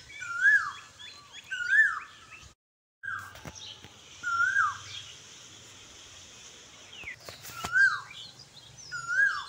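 Birdsong. One bird repeats a short whistled call that rises and then drops sharply, about every one and a half seconds, over fainter, higher chirps from other birds. The sound breaks off for half a second about a quarter of the way in.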